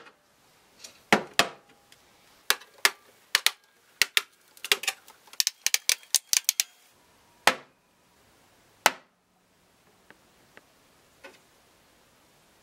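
Steel screwdriver shanks snapping onto small neodymium magnets one after another: a string of sharp metallic clicks, coming fastest in the middle, with a few faint ones near the end.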